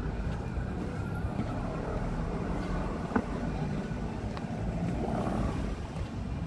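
City street ambience: a steady low rumble of road traffic, with a single sharp click about three seconds in.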